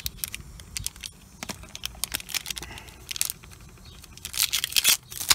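Small clicks and crinkling of hands working a tyre plug repair kit, coating the sticky rubber plug strip with rubber cement and fitting it to the insertion tool, with a louder crinkling rush about four seconds in.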